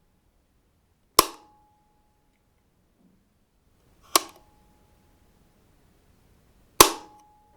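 Light switch toggled on and off, three sharp clicks about three seconds apart. Each click ends with a short, faint ringing tone.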